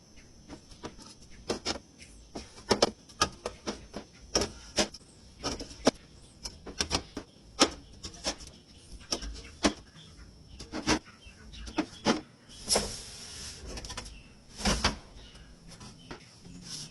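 Irregular clicks, taps and knocks of packaged food and containers being handled and set down, several a second at times, with a couple of brief rustles near the middle.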